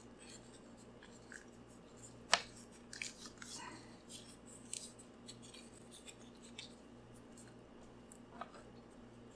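Aluminium foil crinkling faintly as fingers press it tight around a cable splice as shielding: a few scattered small crackles, with one sharper crackle about two seconds in. A faint steady hum sits underneath.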